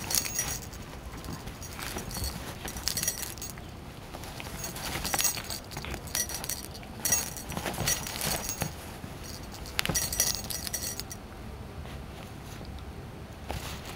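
Metal charm on a cat's collar jingling in irregular short bursts as the cat grabs and kicks a catnip kicker toy, with soft thumps and rustling of the toy against the cushion.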